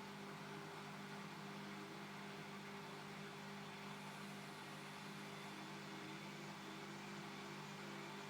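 Bosch Classixx 6 Vario Perfect washing machine running with a steady motor hum. A fainter wavering tone comes in around the middle.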